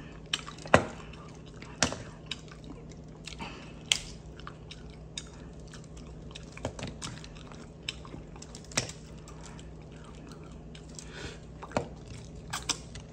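Close-up eating sounds of mussels: wet chewing, with scattered sharp clicks and smacks as the black mussel shells are handled and the meat is pulled out.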